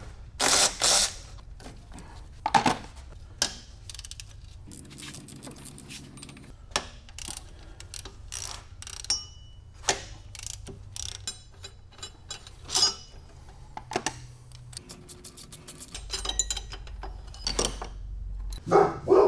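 Ratchet and hand tools working at the crankshaft pulley of a Toyota 2JZ engine. The ratchet clicks in quick runs, with metal tools clanking and knocking, loudest near the start.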